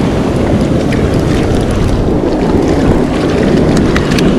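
Wind buffeting the microphone over the wash of surf running up the sand, a steady loud rush with most of its weight low down. A few faint clicks come in near the end.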